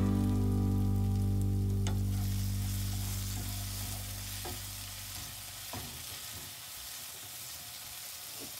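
Background music fading out over the first few seconds, leaving vegetables sizzling in a nonstick frying pan, stirred with a wooden spatula that scrapes and knocks against the pan a few times.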